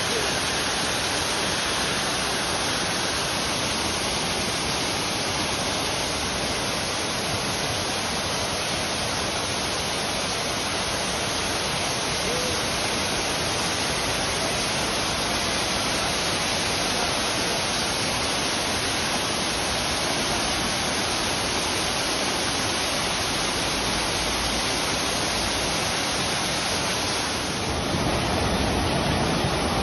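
Waterfall rushing: a steady, even noise of falling water, a little louder and deeper near the end.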